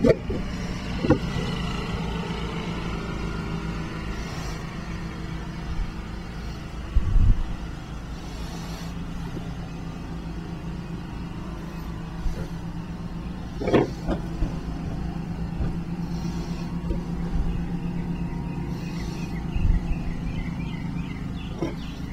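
A steady low mechanical hum, with a few short knocks now and then.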